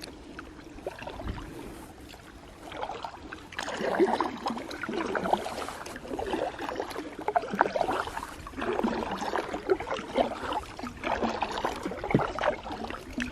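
Kayak paddle strokes in lake water: the blades dipping, splashing and dripping in uneven clusters, quieter at first and louder from about four seconds in.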